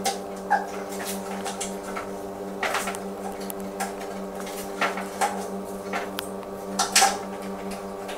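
Scattered clicks, knocks and rustles of a table tennis net set being clamped onto the edges of a mini table, over a steady low hum.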